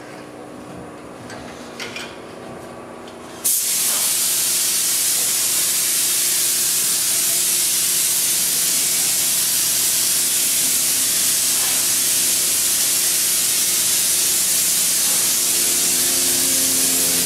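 Hand spray gun on a hose letting out a fine mist with a loud, steady hiss that starts suddenly about three and a half seconds in. Before that the gun is off, and only a low steady hum and a few light clicks are heard.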